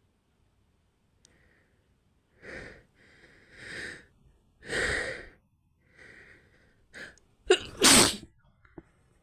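A woman's breathy, catching build-up breaths growing louder over several seconds, then one loud sneeze near the end, set off by a cotton swab tickling inside her nose.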